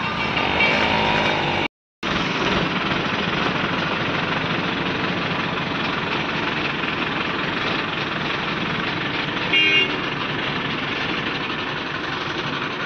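ACE hydra crane's diesel engine running steadily while it lifts a wrecked tractor. A vehicle horn gives a short toot just before ten seconds in. The sound drops out for a moment near two seconds.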